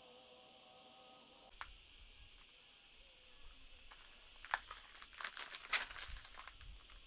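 Steady high-pitched drone of insects in hot countryside. A few short rustles and clicks come in the second half, as someone handles a rope and branch.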